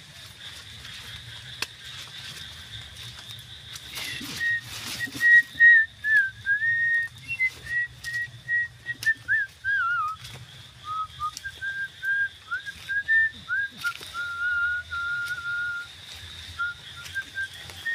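A person whistling a tune: from about four seconds in, a clear whistled melody of held notes and short slides, dipping lower in the middle and rising again near the end. Brief rustling comes as it starts.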